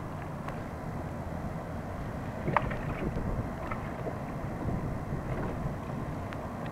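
Water lapping against the hull of a plastic sea kayak, with wind buffeting the microphone. There are a few light knocks, the sharpest about two and a half seconds in.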